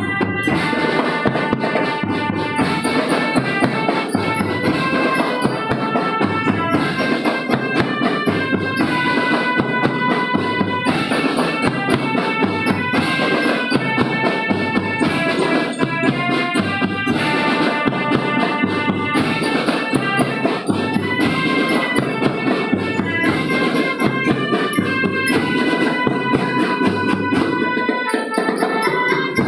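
A school marching drum band playing. Drums beat a quick, steady rhythm under a melody of held notes.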